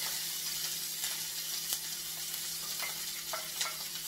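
Chopped onion sizzling in hot oil in a frying pan, with a few light clicks of a wooden spatula.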